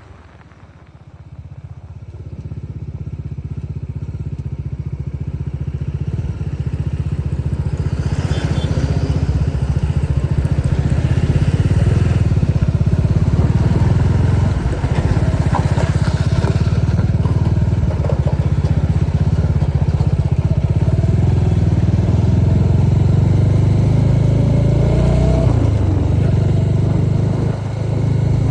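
Bajaj Dominar 400's single-cylinder engine and exhaust running. It comes in about two seconds in and builds over the next ten seconds to a steady, loud, deep drone, with a short dip near the end.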